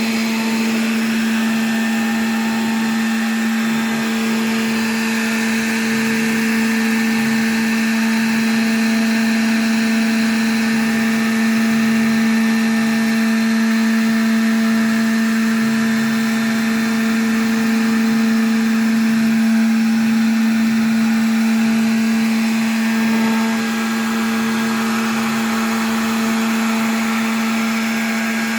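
CNC router spindle running steadily with a constant hum, machining a handle. The sound eases slightly about three quarters of the way through.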